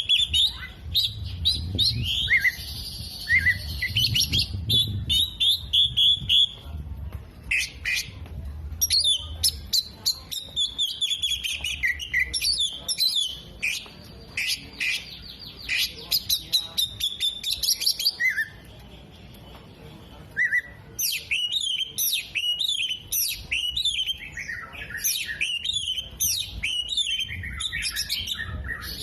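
Oriental magpie-robin singing a loud, varied song of rapid chirps, trills and whistled phrases, with mimicked calls of sunbird, bulbul and lovebird worked in. The singing breaks off briefly about two-thirds through, then resumes.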